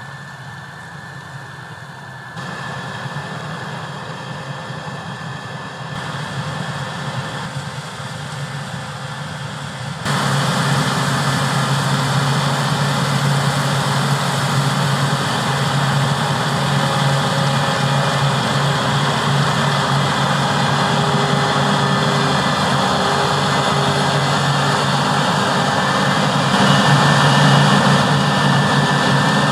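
Heavy diesel harvest machinery running steadily, with a low engine drone under a broad mechanical hiss. The sound jumps in level a few times and is much louder from about a third of the way in.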